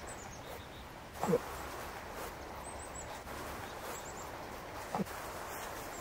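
Bull moose grunting twice in the rut, each a short call that drops sharply in pitch, over a steady hiss.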